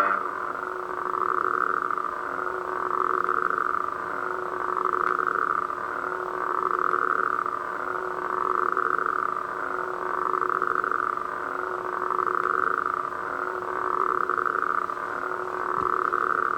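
Crossguard lightsaber sound effect idling: a steady hum whose brighter upper layer swells and fades about every two seconds.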